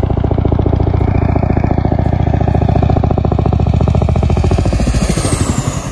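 Low-flying helicopter passing close: rapid, steady rotor-blade chop with a turbine whine. It grows loudest in the middle, then fades near the end as the whine drops in pitch.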